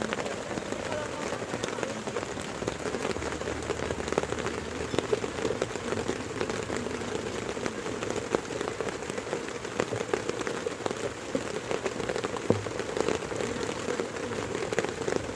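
Heavy rain falling steadily, a dense hiss dotted with many sharp individual drop hits.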